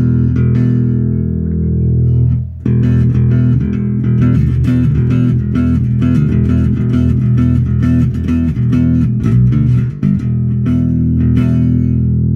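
Electric bass guitar, an Arbor copy of a Gibson Explorer bass, played through a small amp with its tone control at the middle setting: a held low note, then a quick run of plucked notes from about two and a half seconds in, ending on a long ringing note.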